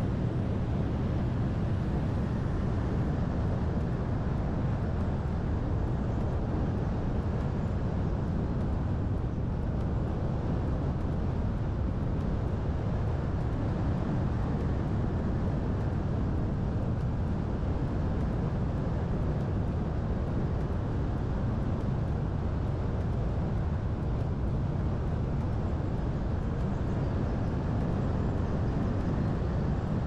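Steady low road rumble of a car driving, tyre and engine noise heard from inside the cabin, with no distinct events.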